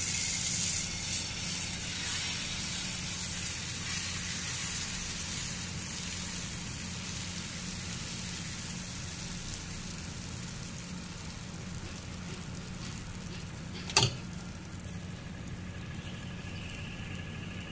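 Multigrain dosa batter sizzling on a hot tawa as it is spread. The sizzle is loudest at first and slowly dies down. One sharp click comes about fourteen seconds in.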